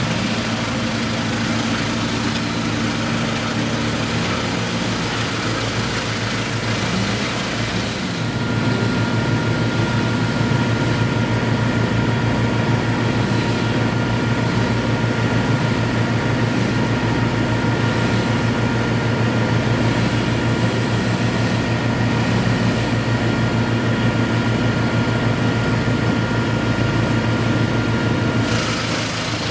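A heavy engine running steadily. About eight seconds in it grows louder and a steady high whine joins it, then both ease off just before the end.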